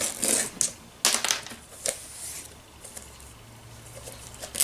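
Fingernails picking and scratching at the plastic shrink-wrap on a VHS-style Blu-ray case. It comes as several short scratchy bursts, mostly in the first couple of seconds, and is fainter after that.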